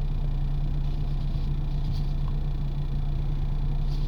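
Steady low-pitched hum over a constant rumbling background noise.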